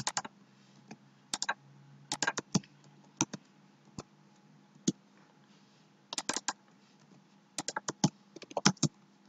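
Computer keyboard typing: keystrokes in short, irregular bursts of a few clicks with pauses between, over a faint steady low hum.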